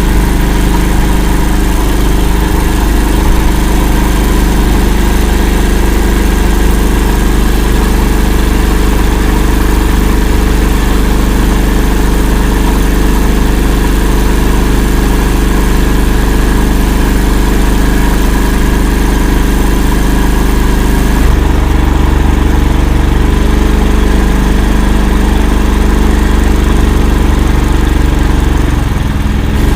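Engine of the Akula all-terrain vehicle running steadily and loud as it drives through a swamp. Its note changes abruptly about two-thirds of the way in, becoming deeper with less hiss on top.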